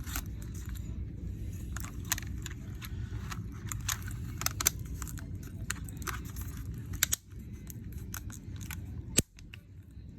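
Irregular small clicks and taps of phone parts and tools being handled as a Samsung Galaxy A32 5G is put back together, over a steady low hum.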